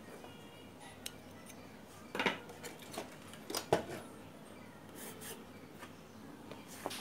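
Handling of a CRT TV's main circuit board and its metal shield: a scatter of light metallic clinks and knocks, the two loudest a little after two seconds and near four seconds.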